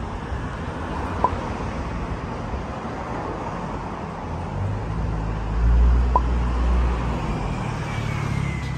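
Street traffic noise with a motor vehicle's engine rumbling low, swelling to its loudest a little past halfway and then easing off. Two short sharp ticks, one early and one in the middle.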